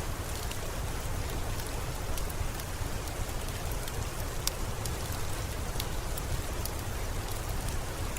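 Steady rain falling, with a low rumble underneath and scattered sharp clicks of a crackling wood fire.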